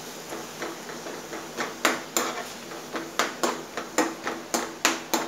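A steel spoon stirring thick tomato-onion masala in a nonstick frying pan, knocking and scraping against the pan in irregular strokes. The strokes are sparse at first and come about two or three a second from about a second and a half in.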